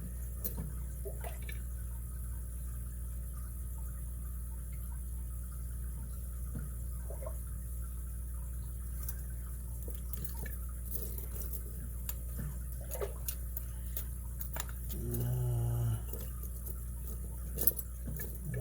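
Scattered light clicks and taps of small metal lockpicking tools being handled, over a steady low hum. About fifteen seconds in there is a short low vocal sound.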